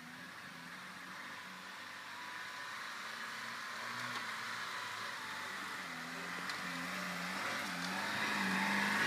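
Lada Niva's engine running under load as the 4x4 crawls across a steep grassy slope, its note rising and falling with the throttle and growing louder as the car comes closer.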